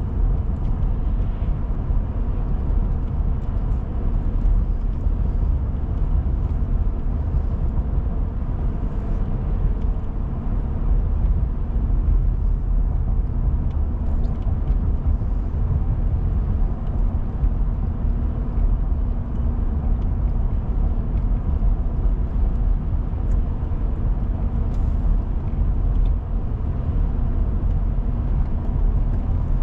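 Steady low road rumble of a car driving, engine and tyres, heard from inside the cabin.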